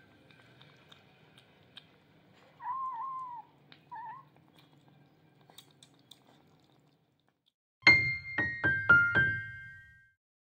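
Kittens eating from a bowl, with faint chewing clicks, and a kitten giving a short meow and then a second, briefer one. Near the end a short electric-piano jingle plays: five quick notes falling in pitch, ringing out for about two seconds.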